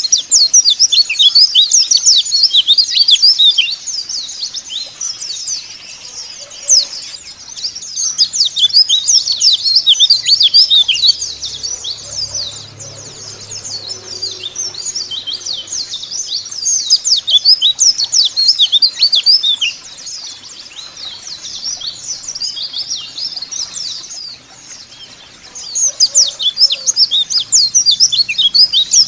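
Several white-eyes (pleci) twittering in dense, rapid, overlapping high chirps. The chirping comes in loud bouts a few seconds long, with quieter twittering between them.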